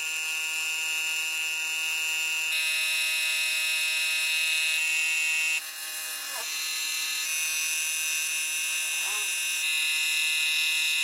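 Steady high-pitched whine of an electric power tool's motor, with abrupt shifts in level and tone about two and a half and five and a half seconds in.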